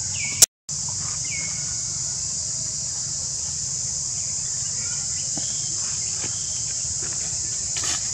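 Steady high-pitched insect drone. About half a second in there is a sharp click and a split-second dropout, and a few faint short chirps come near the start.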